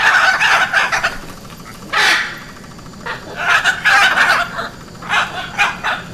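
Hyacinth macaw giving loud, harsh squawking calls in several bursts: a long run at the start, a single short call about two seconds in, then more calls from about three seconds in and again near the end.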